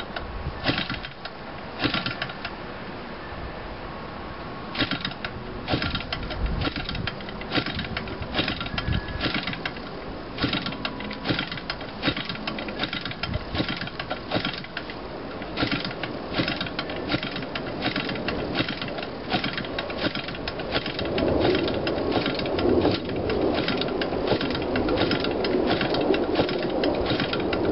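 Small gasoline model-aircraft engine being hand-flipped by its propeller without catching: a sharp click or pop with each flip, roughly one to two a second, the sputters taken as a sign it is close to starting. A rushing noise swells in over the last several seconds.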